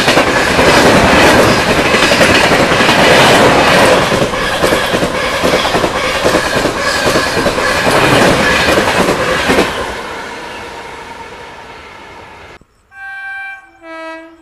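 An express passenger train running through at speed, its wheels clattering over the rail joints; the sound fades away after about ten seconds. Near the end, two short horn blasts from an approaching locomotive.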